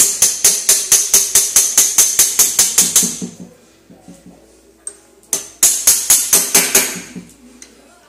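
Two runs of rapid, even metallic clicking, about six clicks a second with a brief ring to each. They come from a Honda Titan 125 motorcycle gearbox as the gearshift shaft is worked into place on the shift-drum star. The first run stops about three seconds in, and a second, shorter run follows after a pause.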